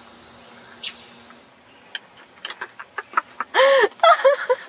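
A bird's loud harsh squawk a little past halfway, followed by a run of short quick calls. Before it, a steady high insect buzz fades out about a third of the way in, and there are scattered light clicks.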